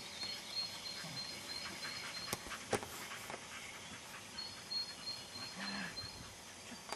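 Insects chirping in a field: a high, rapidly pulsing trill that stops for a couple of seconds partway through and then resumes. A single sharp click about three seconds in, and a brief low voice-like sound near the end.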